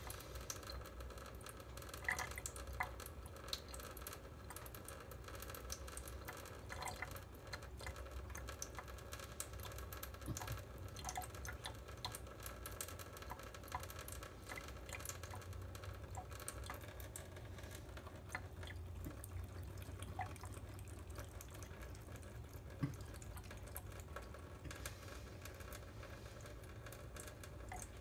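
A thin stream of tap water trickles into a stainless steel kitchen sink while a cat laps from it, with scattered small drips and ticks.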